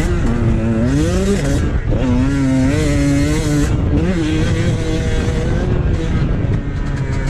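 Dirt bike engine revving hard, its pitch climbing and dropping again and again with throttle and gear changes.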